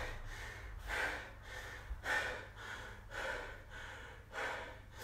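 A man breathing hard through the mouth, about one heavy breath a second, recovering from a high-intensity interval.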